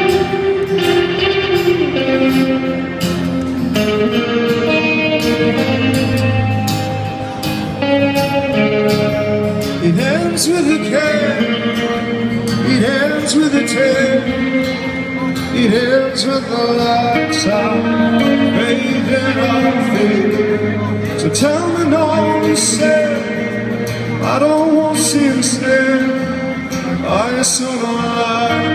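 A live rock band playing a wordless, guitar-led passage, electric and acoustic guitars over a steady beat with cymbal hits, with gliding, bending melody notes coming in about a third of the way through. Heard from among the audience in a large arena hall.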